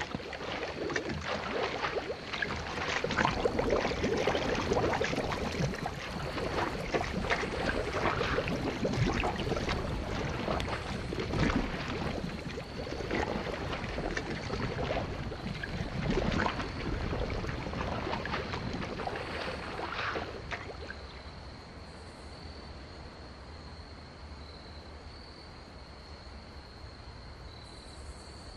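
Swamp water and mud gurgling and bubbling around a sinking car, with irregular gulps and splashes. About twenty seconds in it drops away to a quieter hush as the car stops sinking.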